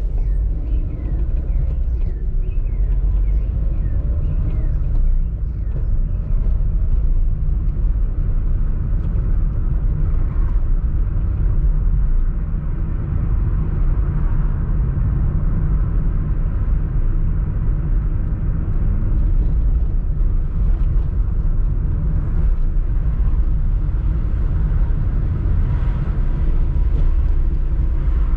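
Steady low rumble of road vehicles, with a faint even hum above it.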